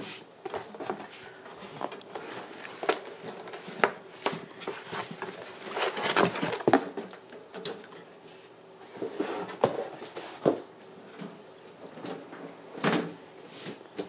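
A metal fire alarm control panel cabinet being pulled out of its cardboard box: cardboard scraping and rustling, with irregular knocks and thumps of the cabinet against the box.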